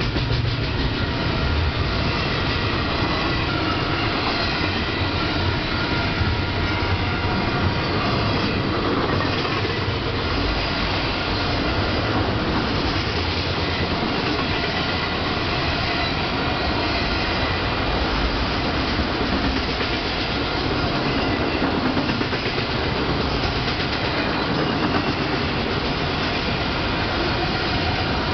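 Freight train rolling past close by: double-stack container well cars, then enclosed autorack cars, making a steady, loud rolling noise of steel wheels on rail.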